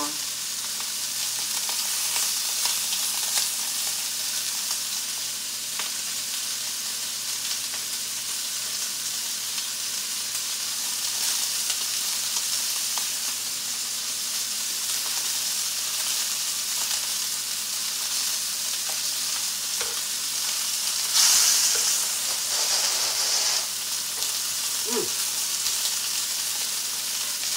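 Lamb chops searing in hot cast-iron skillets: a steady sizzle that swells louder for a couple of seconds near the end, with a few light taps of tongs against the pan.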